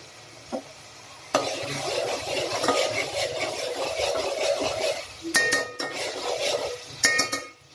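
A metal spoon stirring and scraping frying onion masala around a pan, with a faint sizzle. Near the end the spoon knocks against the pan twice with sharp ringing clinks.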